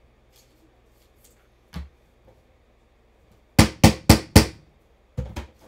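Trading cards being tapped down on the table mat: a single knock about two seconds in, a quick run of four sharp taps a little later, then two more near the end.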